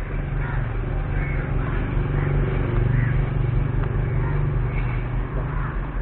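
A motor vehicle's engine running close by: a steady low hum that swells around the middle and eases off near the end, over general street noise.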